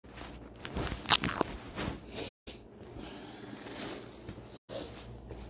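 Handling noise from a phone held against a zip hoodie while the person moves: clothing rustling with a few knocks about a second in. The sound cuts out completely twice for a moment.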